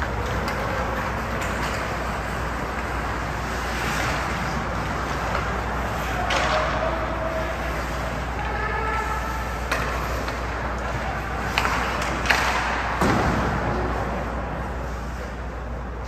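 Ice hockey game in a rink: a steady wash of rink noise, a voice calling out for a few seconds around the middle, then several sharp clacks of sticks and puck about ten to thirteen seconds in.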